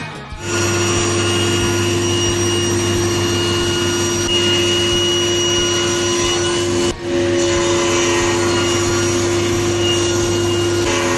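Woodworking power tools running steadily, a thickness planer feeding an end-grain board and then a table saw cutting it, with a steady hum and whine throughout. There is a short break in the sound about seven seconds in.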